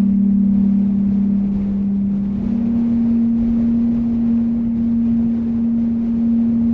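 Low, steady ambient drone of two close tones that beat against each other, over a low rumble of wind. The lower tone fades out about two and a half seconds in, leaving a single held tone.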